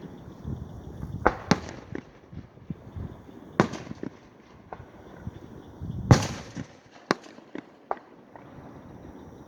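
Aerial fireworks going off: a string of sharp booms and cracks, each trailing off in an echo, the loudest about six seconds in, with a few lighter pops after it.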